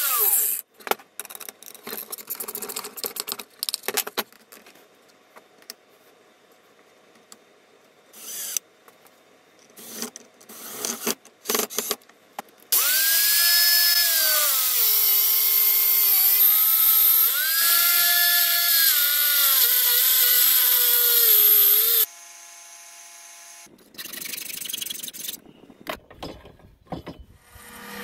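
Corded angle grinder clamped in a wooden jig, grinding the round end of a steel bolt square. After a winding-down whine and some clicks and knocks of handling, it runs loud and steady for about nine seconds from about 13 s in, its pitch dipping each time the bolt is pressed against the disc, then cuts off suddenly.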